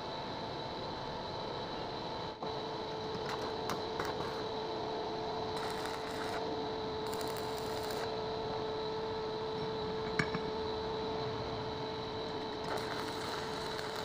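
Stick (arc) welding: the arc sputters with a high crackling hiss for a moment around the middle and again near the end. Under it runs a steady hum with a few steady tones.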